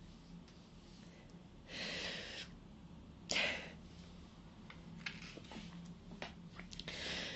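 A woman crying quietly: sniffing and taking shaky breaths, with a sharp sniff about three seconds in as the loudest sound, and small wet mouth clicks between.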